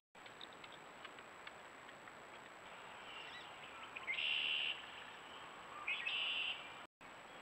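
Wood duck calling twice, a high call about half a second long that rises quickly at its start, the first about four seconds in and the second about two seconds later.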